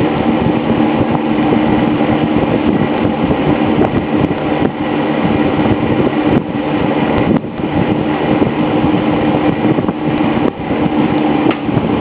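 Vintage Sears Kenmore twin window box fan, model 312.80130 with twin Redmond motors, running on medium speed: a steady rush of air from its two 10-inch blades over a steady motor hum.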